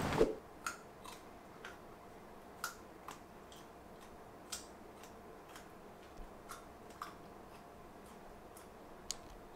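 Street noise cuts off just after the start. Then, over quiet room tone with a faint steady hum, come scattered light clicks and taps of a plastic salad container and utensil being handled while eating, about one every half second to a second.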